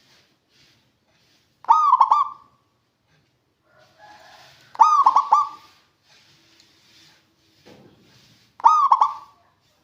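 Zebra dove (perkutut) cooing: three calls about three seconds apart, each a quick, rolling run of notes.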